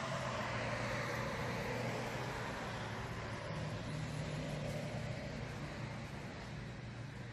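Road traffic: a vehicle passes with a rush of tyre and engine noise that swells over the first couple of seconds and slowly fades, over a steady low hum.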